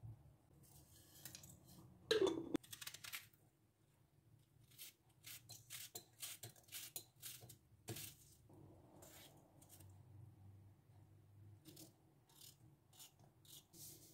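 A small kitchen knife slices a red onion held in the hand: a faint run of crisp, irregular cuts, several a second. About two seconds in there is one louder scrape.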